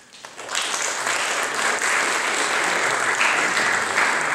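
Audience applauding, the clapping swelling in about half a second in and then holding steady.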